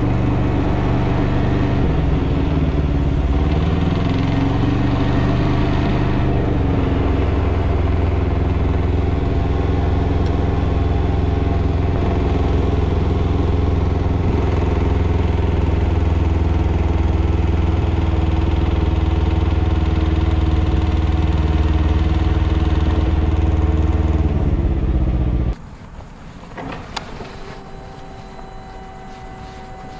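2021 Can-Am Ryker 600's two-cylinder engine running with the knocking sound the owner is asking about, its pitch shifting briefly a few seconds in. Near the end the engine winds down and cuts off suddenly, leaving a faint steady hum.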